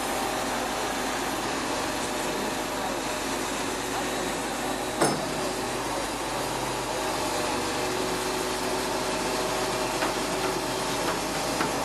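Flatbed truck's engine running steadily under a hiss, with a single sharp knock about five seconds in.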